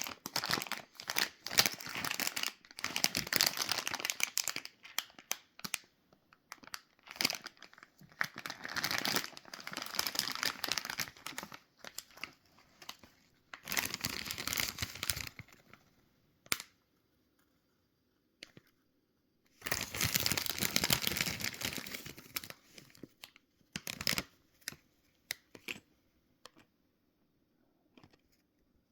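Plastic sweet packet crinkling and crackling as it is handled and torn open, in repeated bursts with a pause about two-thirds of the way through, then one more long burst and a few faint crackles near the end.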